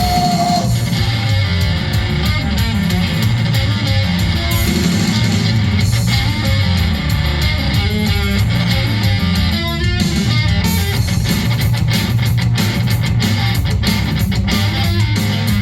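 A live rock band playing a guitar-driven passage: strummed electric guitar over bass and steady drum hits, loud and continuous.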